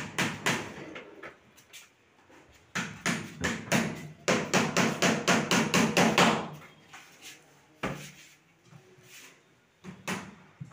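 Wooden cabinet drawers and shutters knocking as they are handled, with a fast run of sharp knocks, about four or five a second, lasting a few seconds in the middle. A single thump follows, then a couple more knocks near the end as a corner pull-out tray is moved.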